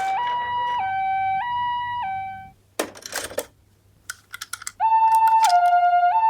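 Toy ambulance minicars' electronic two-tone siren, switching back and forth between a higher and a lower pitch about every half second, like a Japanese ambulance. The first siren fades out about two and a half seconds in, a few plastic clicks and rattles follow, and a louder siren starts about five seconds in.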